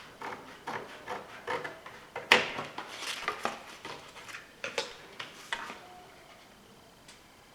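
Hands handling small hard parts and tools on a work surface: irregular clicks, taps and short scrapes, with the loudest knock a little over two seconds in.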